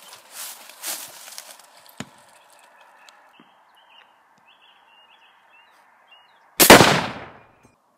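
A single loud rifle shot about two-thirds of the way through, dying away over about a second. Before it come a soft rustle and one sharp click.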